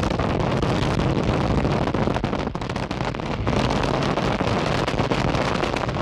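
A rapid run of medium-sized explosions merging into one loud, continuous crackling rumble that starts abruptly, dips briefly twice midway, and cuts off near the end.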